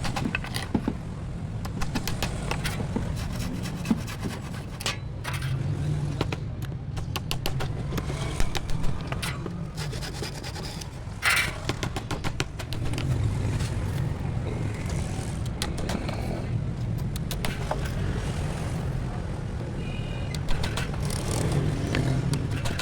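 Woodworking tool scraping on wood, with many short clicks and scrapes over a steady low machine rumble; one sharper scrape comes about halfway through.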